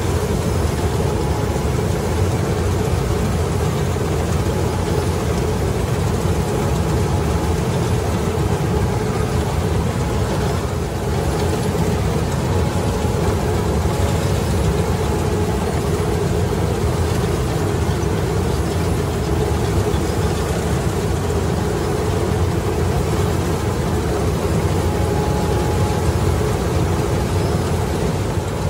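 Self-propelled combine harvester running steadily while harvesting paddy: its diesel engine and threshing machinery make an even, unbroken noise with a few steady hums.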